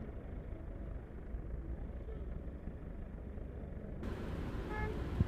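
Low, steady road-traffic rumble, with a vehicle horn tooting briefly near the end and a short knock just after.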